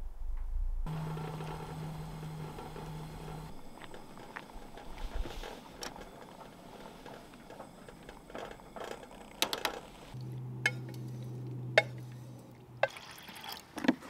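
Pot of water boiling on a camp stove. Toward the end, a utensil clinks sharply several times against aluminium pots as cooked penne is moved from one pot to the other.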